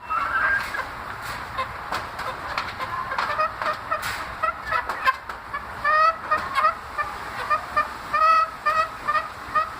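Caged chicks calling: many short, pitched, honk-like calls, often in quick runs and sometimes overlapping, the strange sounds the birds are making in their cage.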